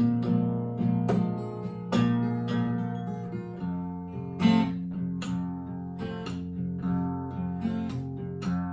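Blues guitar played solo in an instrumental break: plucked notes over a repeating low bass line, without singing.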